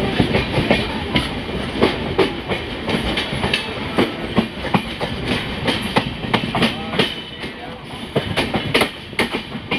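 Passenger train running along the track: a steady rumble of wheels on rail, broken by many sharp, irregular clicks as the wheels pass over rail joints.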